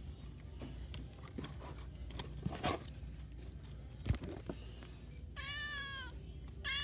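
Sound-making plush pet toy playing a recorded cat meow twice when its stomach is pressed, each meow short and falling slightly in pitch. Before it, a few soft knocks from the toys being handled.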